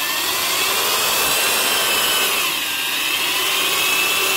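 Porter Cable 7514 half-inch drill running free with no load, its motor and triple-reduction gears whining; the pitch rises at first, dips a little past halfway and climbs again as the speed changes. The gears sound healthy.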